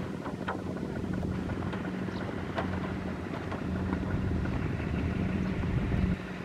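Kubota RT155 power tiller's single-cylinder diesel engine running steadily under load as it pulls a loaded trailer, with a few faint clicks over the hum.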